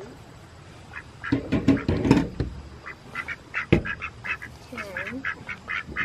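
Poultry calling: a cluster of low calls about a second in, then a run of short, quick repeated calls, several a second, through the second half. A single sharp knock sounds near the middle.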